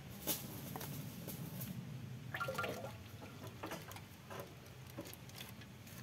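Used oil draining from a Kubota DC68G combine harvester's gearbox into a metal funnel, a thin trickling stream. Several light clicks and metal knocks come from handling at the drain, with a busier cluster about two and a half seconds in.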